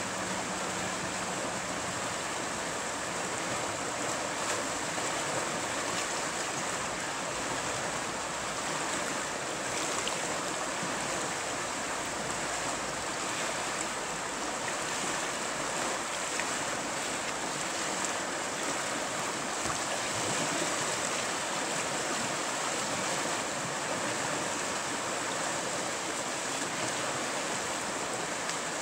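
River rapids rushing steadily, white water churning over a shallow run of standing waves.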